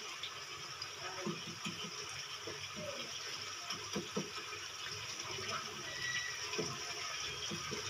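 Tomato-onion masala frying in oil in a nonstick kadai, sizzling steadily, while a wooden spatula stirs it with soft, irregular scrapes and plops.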